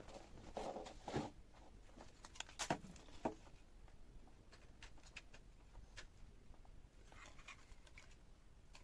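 Faint handling noises: a few light clicks and knocks, the loudest about a second in and near three seconds, with soft rustling between.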